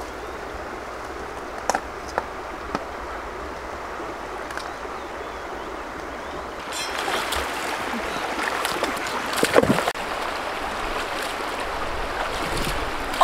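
Shallow stream water flowing and gurgling over rocks. A few faint clicks come in the first three seconds. The water grows louder about halfway through, and a splash comes about three-quarters through.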